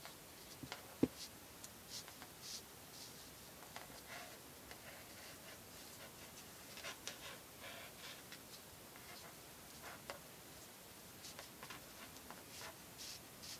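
Faint rustling and scraping of cord being handled and pulled through a knot by fingers, in short scattered strokes, with one sharp click about a second in.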